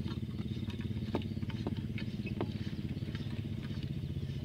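A brass trough valve is being screwed by hand onto a steel gooseneck pipe: scattered small metallic clicks and taps over a steady low mechanical hum.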